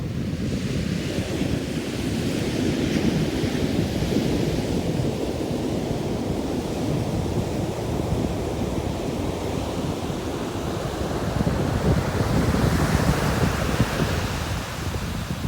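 Ocean surf: waves breaking and washing up the beach, swelling twice, about two seconds in and again near the end, over a steady low rumble of wind on the microphone.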